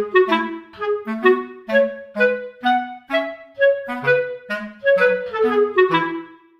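Background music: a light, bouncy melody of short detached notes, about two or three a second, over a low bass line.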